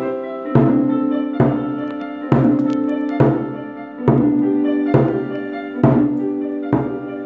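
Djembe struck with soft felt-headed mallets, played along with a piano melody whose notes start about once a second.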